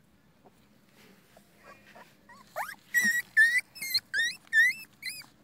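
Young puppies whining: a quick run of about seven short, high-pitched whines, each bending upward, starting about two and a half seconds in after a near-quiet start.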